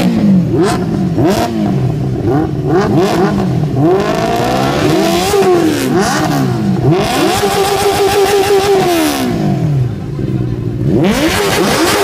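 Benelli TNT 600i's inline-four engine with an IXIL aftermarket exhaust being revved while standing: a run of quick throttle blips, then a longer rev held steady for about two seconds before dropping back to idle, and another rev near the end.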